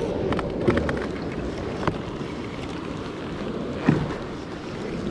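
Wind rumbling on a camera microphone out on the water, with a few sharp knocks on the kayak, the loudest near four seconds in.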